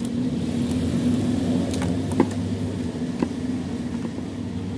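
Scissors snipping through wooden ice cream sticks: a few sharp clicks over a steady low hum.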